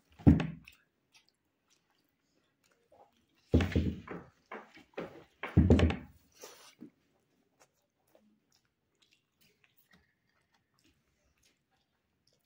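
Close-miked chewing and mouth noise of a man eating rice with dal and potato bhujiya by hand: a short loud burst at the start and a cluster of loud bursts a few seconds in, then only faint scattered clicks.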